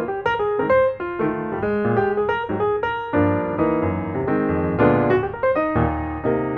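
Background music: a piano playing a melody of many short notes over chords.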